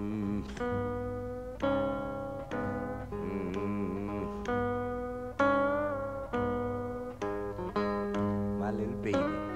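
Acoustic blues guitar music: a picked passage of single plucked notes, some of them wavering or bending in pitch.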